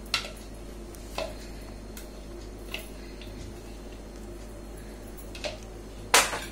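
A few scattered light clinks and knocks of a steel mixer jar and spatula against a glass bowl as thick paste is scraped out, with one louder knock near the end.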